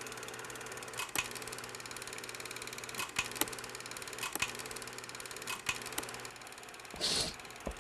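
A steady low hum with a few sharp clicks, mostly in pairs a fraction of a second apart, and a short burst of hiss near the end.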